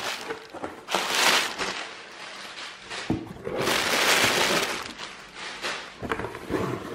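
Packaging rustling and crinkling as a parcel is unpacked by hand: bubble-wrapped items shifted about inside a cardboard box, with two louder bursts of rustling about a second in and around four seconds in.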